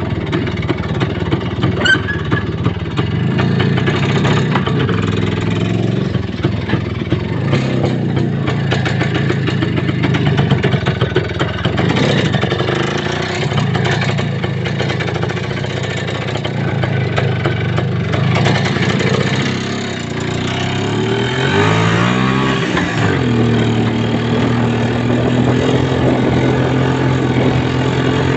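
A vehicle's engine running while driving, over a rattling, uneven background. About three-quarters of the way through, the engine note sweeps up and down, then settles into a steady, higher tone.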